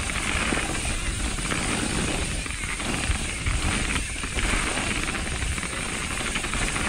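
Steady wind rush buffeting the microphone, with low tyre rumble from a mountain bike being ridden along a trail.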